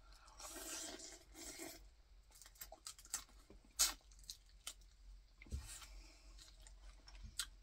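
Close-miked eating: chewing a boiled crawfish tail, with soft wet mouth smacks and scattered sharp clicks, the loudest about four seconds in.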